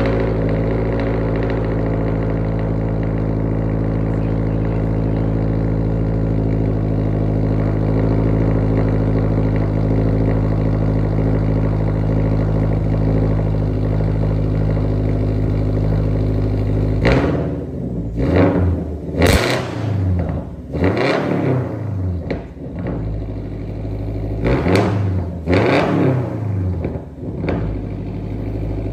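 2022+ Subaru WRX's turbocharged 2.4-litre flat-four, fitted with JDMuscle unequal-length headers and a straight-pipe exhaust, running at a steady fast idle just after a cold start. About seventeen seconds in it is revved in a string of quick blips, each rising and falling, then settles back to idle near the end.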